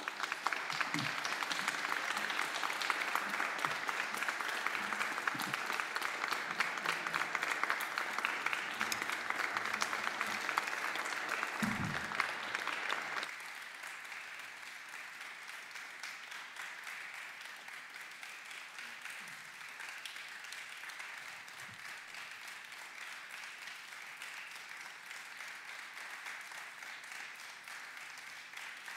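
Audience applauding, loud for the first thirteen seconds or so, then dropping suddenly to softer, steady clapping.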